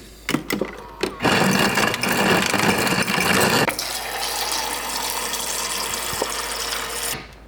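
Fuel nozzle pumping gasoline into a car's tank: a few clicks, then a loud rush of flow about a second in that eases to a steadier, quieter flow and stops shortly before the end.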